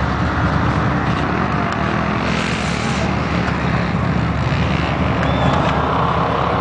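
Big mud-bog Chevy truck's engine running hard as it pulls a stuck truck out of the mud, a loud, steady low rumble. About two seconds in there is a brief rushing hiss.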